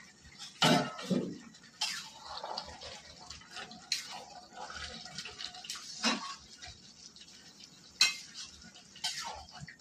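Metal spoon stirring a watery Malabar spinach curry in an aluminium kadai: wet stirring with repeated sharp clinks and scrapes of the spoon against the pan, the loudest about half a second in and about eight seconds in.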